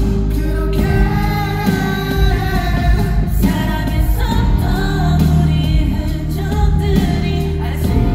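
Live Korean pop ballad performance: singing over a loud, amplified band or backing track with a steady bass.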